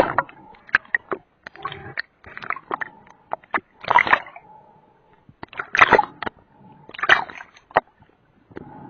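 Water splashing and sloshing in irregular surges every second or two, with sharp clicks and knocks between them.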